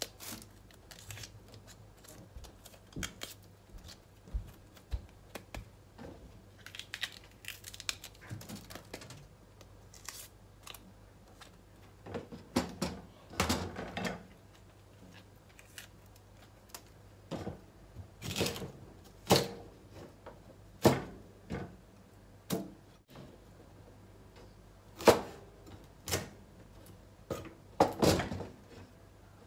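Kitchen knife cutting a green bell pepper on a wooden cutting board: irregular knocks of the blade against the board, getting louder and more frequent about halfway through.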